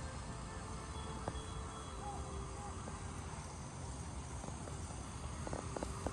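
Steady running noise of a small forced-air furnace blower, with a few light clicks near the end.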